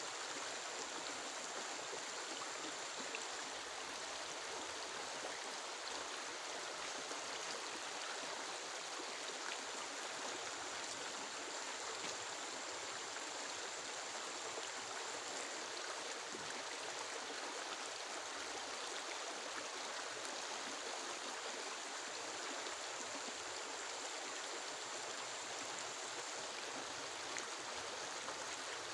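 Steady, even rush of heavy rain. A faint high steady tone comes and goes three times over it.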